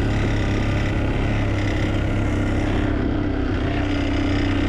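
Four-wheeler (ATV) engine running steadily, with no change in speed.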